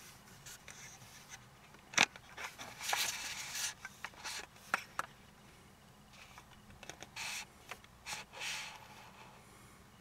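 Handling noise on a handheld camera: irregular scrapes and rubs against the device, with one sharp click about two seconds in and a few softer clicks.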